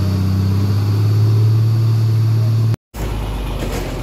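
Diesel engine of a truck-mounted crane running steadily with a loud, low, even hum. After a short break about three seconds in, it gives way to the quieter, rougher rumble of a heavy dump truck and road traffic.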